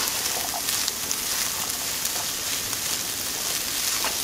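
Fresh corn kernels sizzling steadily in oil in a nonstick frying pan as they roast, stirred with a wooden spatula.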